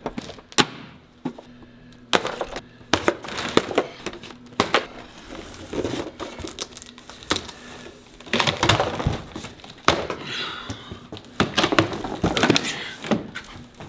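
Hands handling plastic parts and packaging: a string of sharp clicks and knocks, like a plastic cover being fitted, mixed with crinkling and rustling of packing material.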